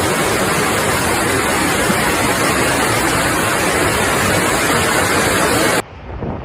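Loud, steady rushing of muddy floodwater surging down a street, which cuts off abruptly near the end to a much quieter rush.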